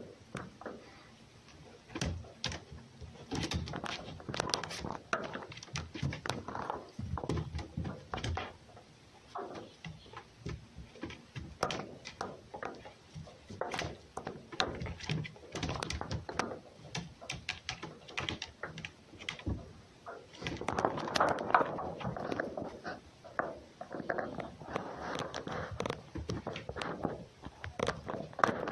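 A fox and a cat play-fighting on a wooden box: paws scrabbling and bodies knocking against the boards in an uneven run of thumps and scuffles. A louder, busier stretch of scuffling comes about three-quarters of the way through.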